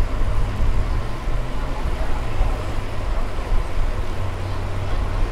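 Wind rumbling on the microphone of a moving bicycle, over a steady noise of tyres rolling on pavement.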